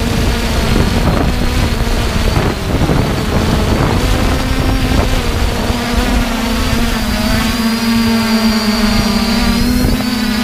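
3DR Iris+ quadcopter's four brushless motors and propellers buzzing steadily in flight, heard from the aircraft's own camera, with wind noise on the microphone. The pitch steps up slightly about halfway through.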